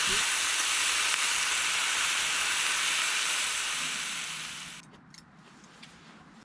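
A steady, loud hiss that cuts off abruptly about five seconds in, followed by a few faint clicks.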